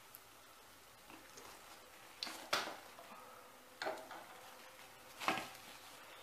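A wire skimmer clinking against the frying pan and plate as a fried samosa is lifted out of the oil: about four short, light metallic taps, the loudest about two and a half seconds in.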